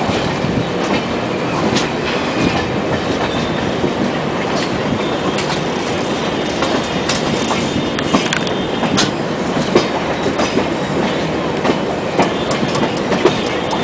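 Dehradun Shatabdi Express (12017) passenger coach running along the track, its wheels clattering over rail joints with irregular sharp clicks over a steady rumble.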